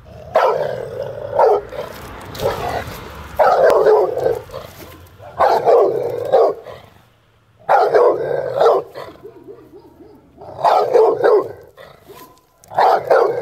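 Dog barking in loud volleys of several barks, one volley about every two seconds.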